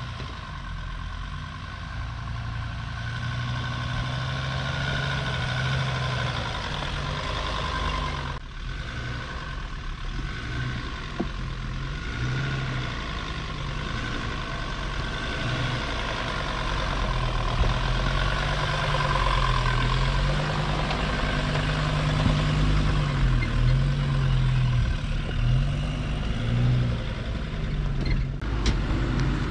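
Jeep Grand Cherokee WJ's 2.7 CRD diesel engine pulling slowly up a rocky off-road track, its note rising and falling with the throttle and getting louder as it draws near. A few sharp knocks near the end.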